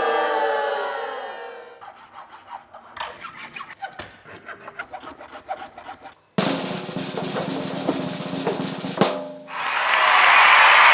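Workshop assembly noises while hinges are bolted onto a 3D-printed part, in several cuts: a run of irregular clicks and knocks, then a steady dense noise with a low hum, then a loud steady hiss near the end.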